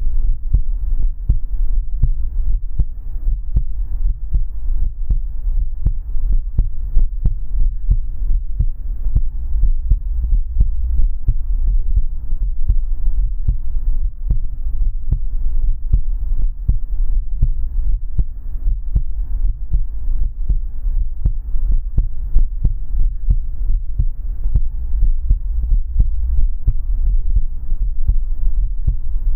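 Human heartbeat, low muffled beats repeating in a steady, even rhythm, with a faint steady hum underneath.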